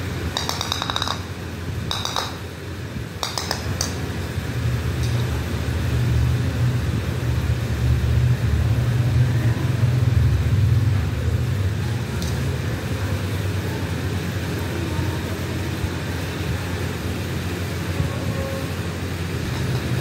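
A small plastic toy ball clinking and jingling in three short spells in the first few seconds as it is knocked about on a hard terrazzo floor, over a steady low hum.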